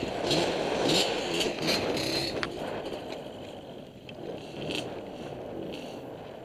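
Honda CRF450 dirt bike's four-stroke engine cuts off right at the start, leaving scraping and rustling with scattered clicks as the bike sits stopped in sand.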